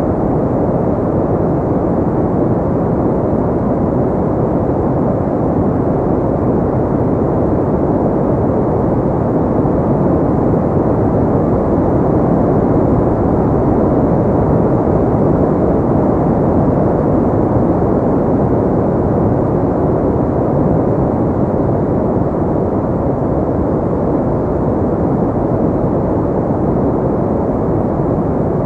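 Steady synthetic pink noise, a constant, even rushing sound that is deep and dull, with most of its weight in the low and middle range and little treble.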